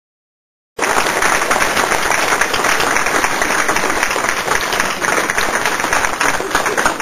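Audience applauding, steady and loud, starting abruptly about a second in and cutting off sharply at the end.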